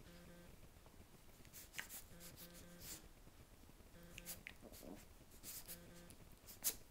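Two Havanese puppies wrestling on a bedspread: faint rustling and scuffling of paws and fur on the fabric, with a few short scratchy sounds.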